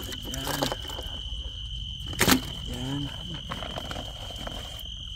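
A steady high-pitched insect drone runs throughout. It is broken about two seconds in by one sharp knock, the loudest sound, and by two short murmurs of a voice.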